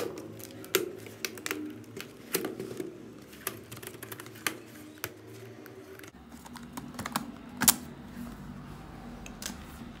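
Irregular plastic clicks and taps from a Dell Latitude D620 laptop's case being handled as its hinge cover above the keyboard is pried off. The sharpest click comes a little after halfway.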